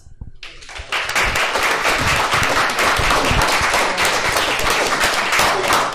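Audience applauding: many hands clapping, starting about half a second in and quickly swelling to steady, dense applause.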